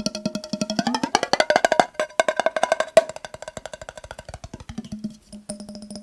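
Rapid tapping on a glass mason jar holding water, about ten taps a second, each tap ringing at a clear pitch. The pitch slides up about a second in, and the single loudest tap comes about three seconds in. The taps thin out and grow fainter after about four seconds.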